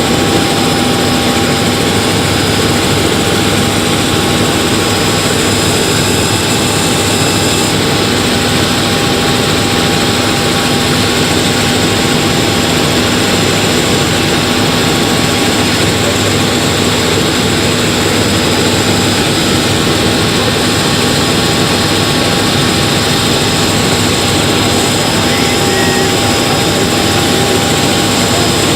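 Helicopter in flight heard from on board: a loud, steady drone of turbine whine and rotor noise with a few constant tones, unchanging throughout.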